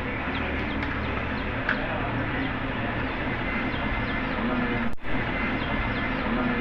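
Television set's speaker giving out a steady hiss with a mains hum instead of sound: the audio-section fault under repair. The noise cuts out for an instant about five seconds in.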